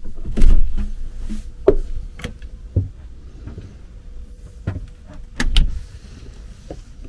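Irregular knocks, clicks and low thumps from the camera being handled and carried about a small boat. The loudest thumps come just after the start and about five and a half seconds in.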